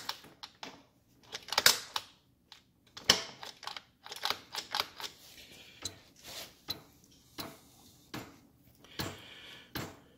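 Irregular clicks and light metal clunks as the Norton Commando's engine is rolled over by hand, brought up on compression to find the timing mark.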